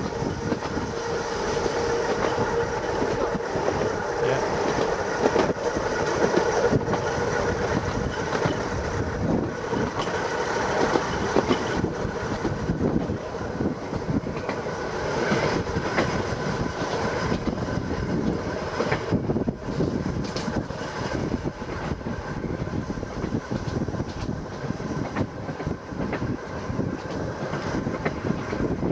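Seaton Tramway electric tram running along its track, heard from the open upper deck: a steady rumble of wheels on rail with scattered clicks and a steady whine.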